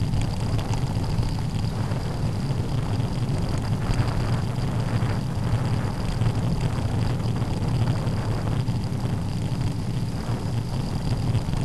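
Wind buffeting a bicycle-mounted camera's microphone during a road ride, with a low steady rumble of tyres on tarmac and a thin steady high whine.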